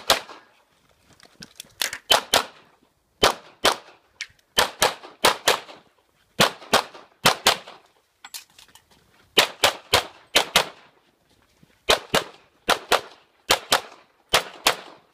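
Handgun shots fired in rapid pairs and threes, dozens in all, with short breaks between strings as the shooter moves between positions on a practical pistol stage. Each shot is a sharp crack with a brief echo.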